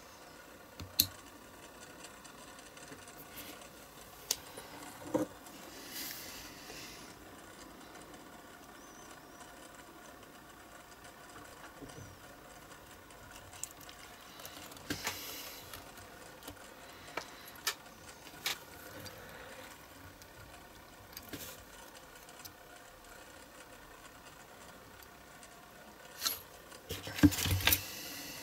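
Sporadic small metal clicks and taps as wheels are fitted onto a diecast toy car's axles and the axle ends are crimped with flat-filed pliers, with a louder run of clatter near the end.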